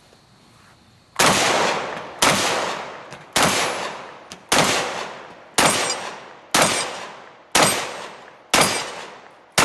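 Mossberg 930 JM Pro semi-automatic 12-gauge shotgun fired in a rapid string, eight shots about a second apart starting about a second in, with a ninth at the very end, each shot followed by a fading echo.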